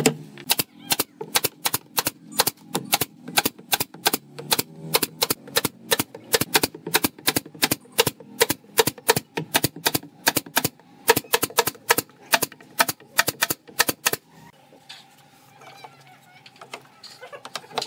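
Pneumatic brad nailer firing nails into pine shelf slats, a rapid string of sharp shots at about three a second that stops about 14 seconds in.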